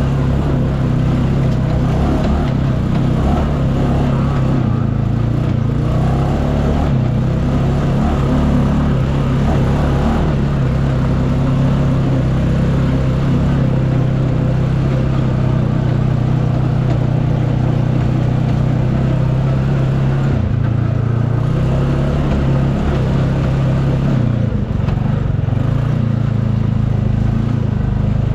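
UTV engine running steadily while driving on a trail, with a constant low engine note and rumble. The note shifts briefly about twenty seconds in and again near the end.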